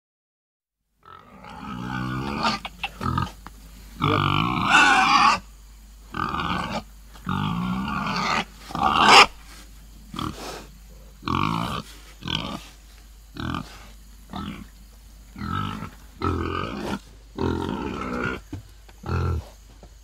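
Pig grunting in a long series of short, irregular grunts, with a few longer, louder calls, starting about a second in.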